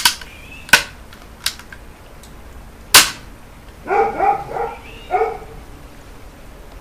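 Pedersoli Frontier flintlock rifle's lock being worked: sharp metallic clicks of the cock and the flint snapping down onto the frizzen, the loudest about three seconds in. This is a test of a freshly sharpened flint for hot sparks. About four seconds in come four short yelping calls.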